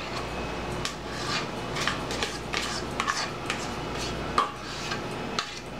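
A plastic spoon scraping thick mousse filling out of a stainless steel mixing bowl, with many short, irregular scrapes and light taps against the bowl.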